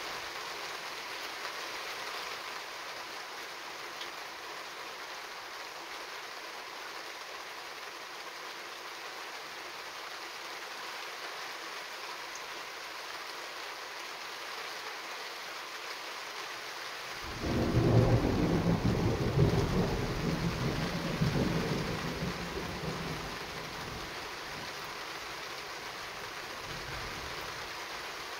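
Steady rain falling, then about two-thirds of the way in a thunderclap breaks in suddenly and rumbles loudly for several seconds before fading back under the rain.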